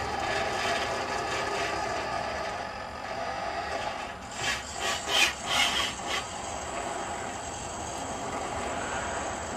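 Electric steering motor of a radio-controlled golf cart turning the steering column through a chain and sprocket. About four seconds in comes a run of about five short, louder bursts of motor and chain noise over a steady background.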